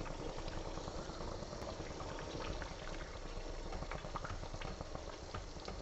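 Thick tomato-based egg and potato curry bubbling at a simmer over a gas flame, a steady run of small pops and burbles.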